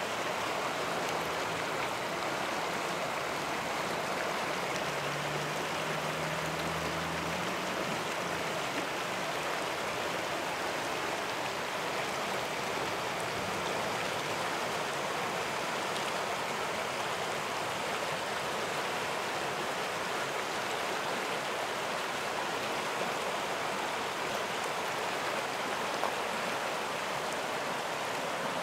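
River water rushing steadily over a shallow, broken stretch of current: an even, unbroken wash of water noise.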